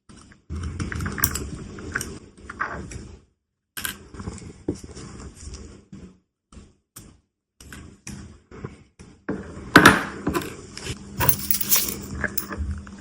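Small metal watch parts and tools being handled on a watchmaker's bench: light metallic clicks, taps and scrapes. The loudest, sharpest click comes about ten seconds in.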